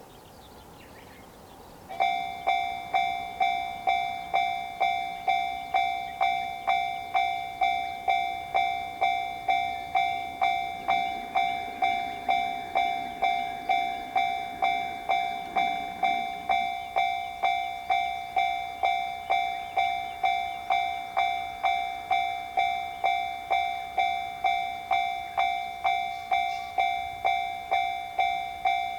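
Japanese level-crossing warning bell starting up about two seconds in and ringing steadily at about two strikes a second, the 'kan-kan' alarm that signals a train approaching.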